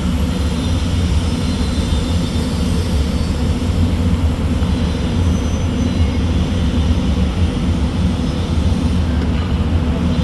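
Steady low mechanical drone with an even hiss over it, unchanging throughout.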